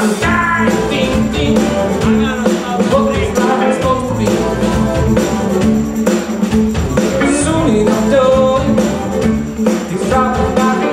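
Jazz and soul band playing live: drums keep a steady beat under electric bass, electric guitar and a melodic lead line.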